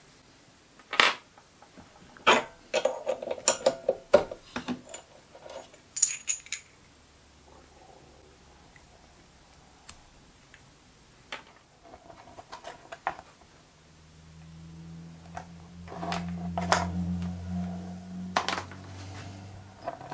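Small metal parts clicking and clinking as a brass fitting is handled and taken out of a lathe's three-jaw chuck, with a cluster of sharp taps in the first few seconds and scattered softer ones later. A low steady hum comes in for the last few seconds.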